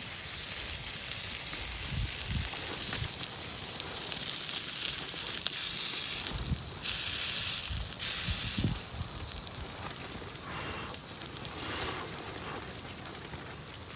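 Lamb chops sizzling over a wood campfire, a steady frying hiss with two louder surges about seven and eight seconds in, after which it settles to a quieter sizzle.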